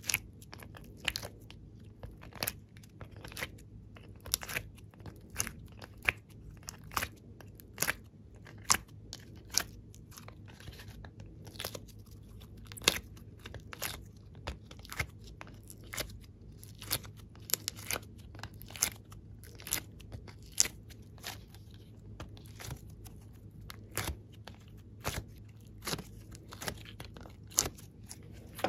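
Sticky clicks and pops of soft clay being pulled from a mold and squeezed between the fingers: an irregular run of sharp crackles, about one or two a second.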